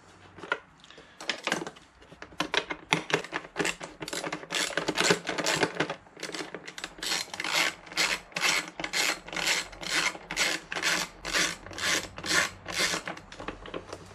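Socket ratchet undoing a motorcycle's air-chamber bolt. Irregular clicking and handling at first, then a steady run of ratchet strokes, about two a second, from about halfway in.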